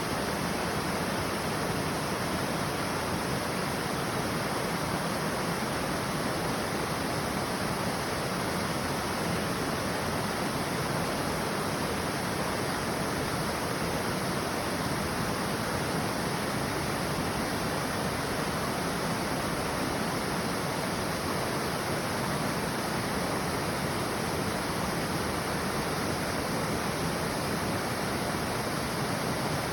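Waterfall: water falling and rushing with a steady, unbroken sound.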